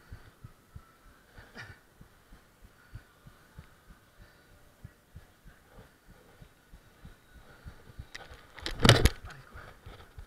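Low, irregular thumping and knocking from a chest-mounted action camera jostling against the wearer's body as he moves. About nine seconds in comes one loud thud, like a body landing or striking a surface.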